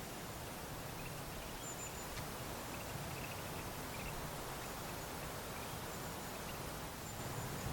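Wind blowing steadily, an even rushing noise, with faint short high chirps now and then.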